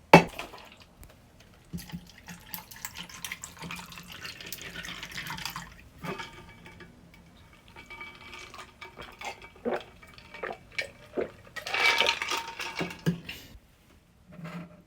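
Metal camp cookware and utensils clinking and knocking, with a stretch of liquid being poured about two seconds in. The loudest clatter of ringing metal comes near the end.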